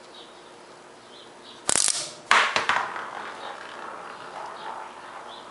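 Homemade Gauss rifle of steel ball bearings and neodymium disc magnets firing: a quick run of sharp metallic clacks as the balls snap onto the magnets in a chain, then about half a second later a louder clack followed by a rattle that dies away.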